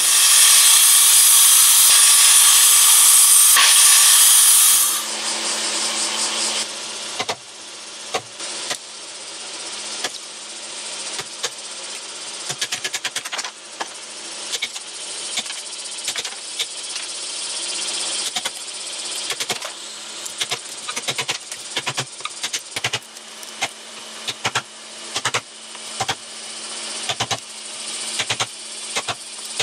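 A steel hammer repeatedly strikes a Japanese chisel that is chopping into a timber beam to cut the female side of a kabuto-ari (helmet dovetail) joint. The sharp knocks start about seven seconds in and come one or two a second, over a faint steady hum. A loud rushing hiss fills the first five seconds.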